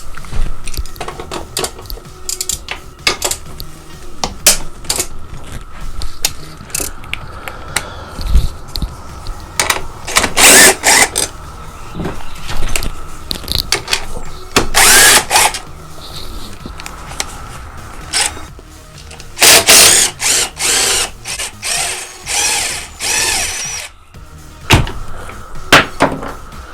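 A power tool running in several short bursts, spinning out bolts, between clicks and clanks of hand tools, as the rear subframe of a dirt bike is unbolted.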